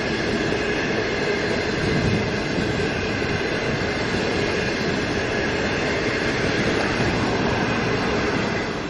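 Green 25B-type hard-seat passenger coaches rolling past at speed, with a steady running noise of wheels on the rails.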